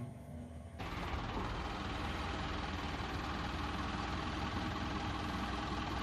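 A vehicle engine running steadily, heard as an even rumble with hiss that comes in about a second in.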